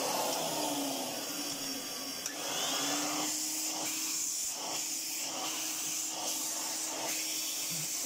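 The 800-watt motor of a 1979 Hitachi CV-95N commercial tub vacuum cleaner running steadily, a tone under the rush of air, on a test run after the motor has been refitted. About halfway through, the air noise swells and dips several times.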